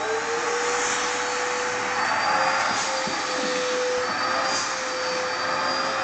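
Vacuum cleaner running steadily through its hose, with an even rushing of air under a steady whine whose pitch settles in the first moment.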